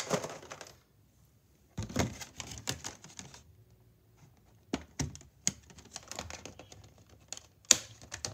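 Clear plastic packaging of a trading-card collection box being pried and flexed by hand to free a card wedged tightly in it: a run of sharp plastic clicks and crackling, with short pauses.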